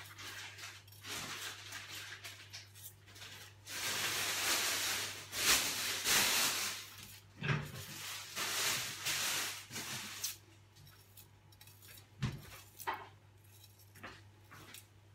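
Chef's knife slicing an onion held in the hand over a bowl, with a few sharp clicks of the blade or utensils. In the middle there is a few-second stretch of loud hissy rustling, and a low steady hum runs underneath.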